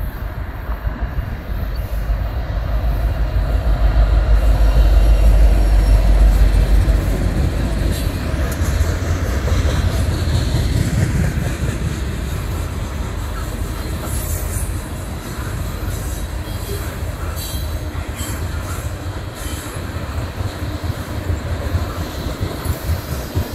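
BNSF diesel freight locomotives rumble past, loudest about four to seven seconds in. A string of ethanol tank cars follows, rolling by steadily with short high wheel squeals in the second half.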